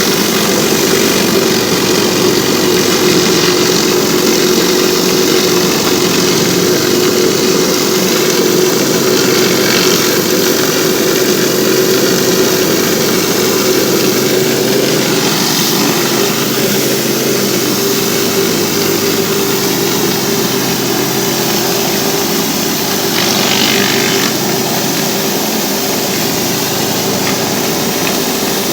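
Pressure washer running steadily: a constant machine hum under the hiss of high-pressure water spraying on a driveway. The spray hiss swells briefly a few times.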